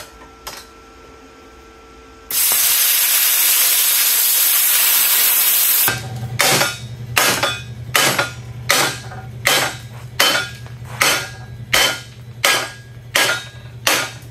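Plasma cutter (CUT55) cutting 3/8 inch steel plate: the arc starts about two seconds in with a loud, steady hiss. About six seconds in a low hum sets in underneath, and the hiss comes in short regular bursts, about three every two seconds.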